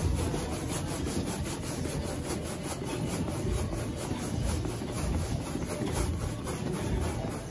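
Quick, even rhythm of rubbing and swishing strokes from fast seated sprint-style arm swings.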